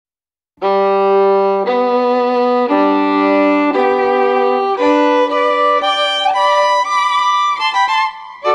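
Background violin music: slow held notes about a second each, starting about half a second in, moving to quicker notes near the end.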